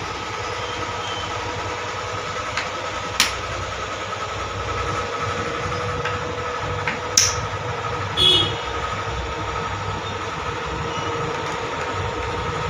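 Steady hum of a running electric machine, with a few sharp metallic clicks, the clearest about 3 and 7 seconds in, as a T-handle Allen key is worked on the blanket clamp nuts of an offset printing press.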